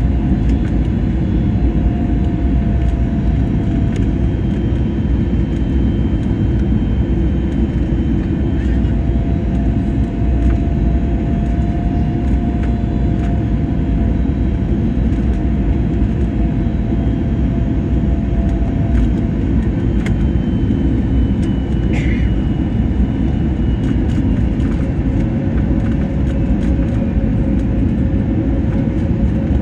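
Steady airliner cabin noise during descent: an even, deep rumble of engines and airflow, with a faint steady whine that sits slightly lower in pitch near the end.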